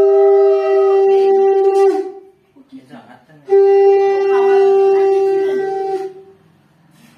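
Conch shell (shankha) blown in two long, steady blasts of about two and a half seconds each, the first sliding up in pitch as it starts, with a short pause between them.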